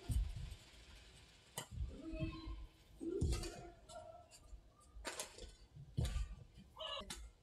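Badminton rally: a feather shuttlecock struck back and forth by rackets with sharp cracks every second or so, and short squeaks from the players' shoes on the court between the hits.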